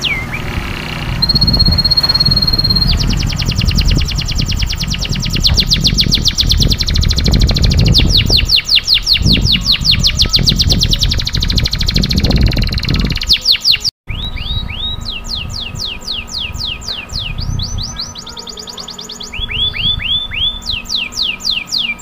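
Domestic canary singing a long song of rapid rolling trills: fast rows of repeated notes, each sweeping down in pitch. A held, steady whistle comes about a second in, and the song cuts out for an instant about 14 s in. A low rumble runs underneath through the first half.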